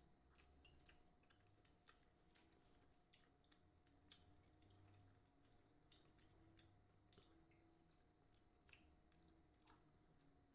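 Faint close-up eating sounds: scattered crisp clicks and wet smacks of people chewing broccoli and beef.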